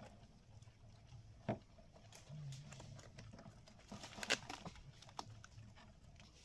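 Hand tearing fibrous palm-trunk pith apart: faint crackling with a few sharp snaps.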